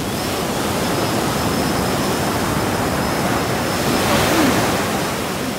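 Steady rush of ocean surf breaking on a beach, swelling a little about four seconds in.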